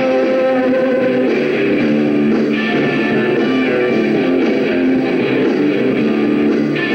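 Live rock band playing, with electric guitars over bass and drums.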